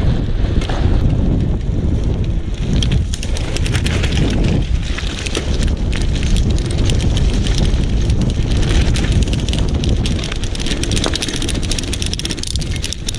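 Wind rushing over the microphone on a moving bicycle, with tyres rolling over a rough dirt track and a steady run of rattles and clicks as the bike jolts over the bumps.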